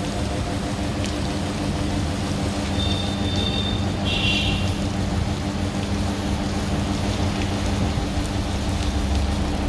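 AC roll seam welder running: a steady electrical hum under a continuous crackling hiss, with a brief high-pitched tone about three to four seconds in.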